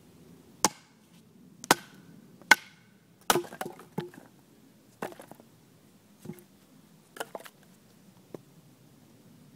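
Chopping blows into wood as a small log is split with a heavy bowie knife. There are three loud, sharp chops about a second apart, then a run of lighter knocks and rattles as the wood gives way.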